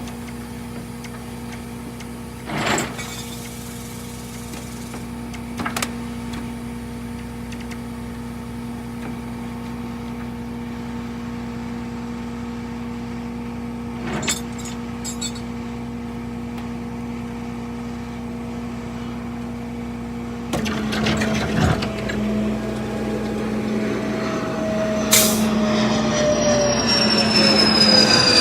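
A truck engine running steadily, with a few short knocks. About twenty seconds in it gets louder and rougher, and a whine slowly falls in pitch.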